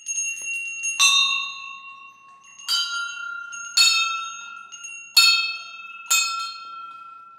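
Small hanging brass bells being rung one after another. A few faint tinkles come first, then five clear strikes about a second apart, each bell ringing on and fading slowly, at slightly different pitches.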